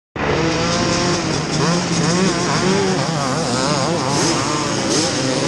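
Several vintage motocross bikes, a Yamaha YZ465 two-stroke among them, idling and blipping their throttles on the start line before the race, the engine notes rising and falling in quick overlapping revs.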